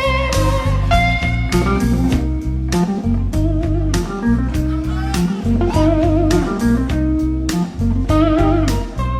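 Live electric blues band playing a slow minor blues: a lead electric guitar solo of sustained, bent notes with wide vibrato over bass and drums.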